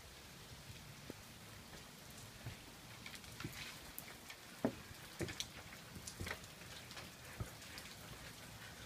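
Light rain: a faint steady hiss with scattered individual drops tapping, more of them from about three seconds in.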